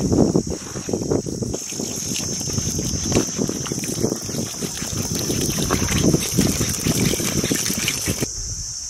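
Hands squishing a wet spiced chicken mixture in a steel bowl, then water from a hand-pump dispenser on a large water bottle pouring and splashing into a plastic bowl as a cloth is pressed down into it. The pouring stops shortly before the end.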